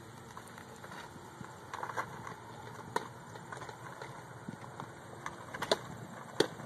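Faint outdoor background broken by a few short sharp knocks. The last, about six and a half seconds in, just after the pitcher's throwing motion, is a baseball smacking into the catcher's mitt.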